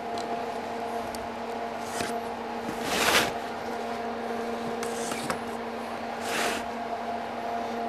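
Packing tape on a cardboard box being slit with a small utility blade and the box shifted about: a few short scraping swishes, the loudest about three seconds in and another about three seconds later, over a steady low hum.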